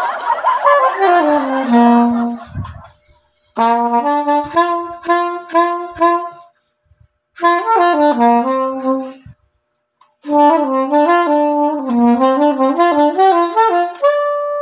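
Soprano saxophone played on a Bari synthetic resin reed of medium-soft (MS) strength, tested fresh out of the pack. It plays four short phrases of separate notes with brief pauses between. The first phrase starts airy and falls in pitch.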